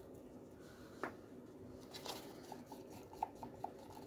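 Quiet handling of a plastic cup and wooden stir stick while mixing white pigment into epoxy resin: a single sharp click about a second in, a brief rustle, then a few light clicks of the stick against the cup.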